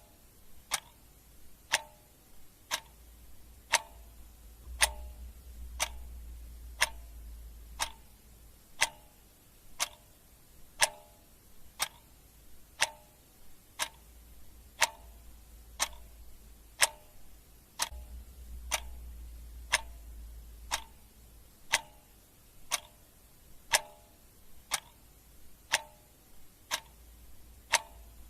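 Clock ticking steadily, one sharp tick about every second, the ticks alternating slightly in tone like a tick-tock.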